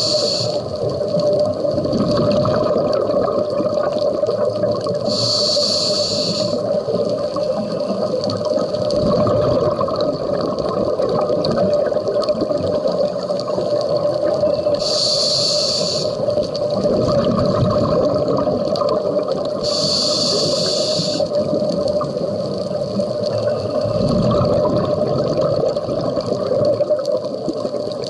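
Scuba regulator breathing underwater: a short high hiss on each inhalation, four times, with low bubbling rumbles of exhaled air between them, over a steady underwater hum.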